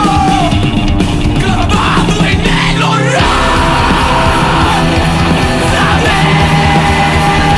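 A live hardcore punk band playing loud: distorted electric guitars, bass and drums, with screamed vocals. The bass and drums drop out briefly about three seconds in while a guitar chord rings on, then the full band comes back.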